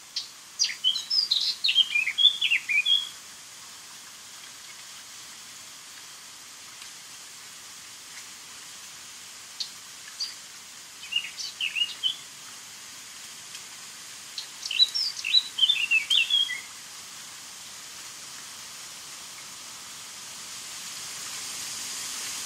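A small songbird singing three short bursts of quick, jumbled high notes, each lasting a couple of seconds: near the start, about halfway through, and again a few seconds later. A steady hiss runs underneath and grows louder near the end.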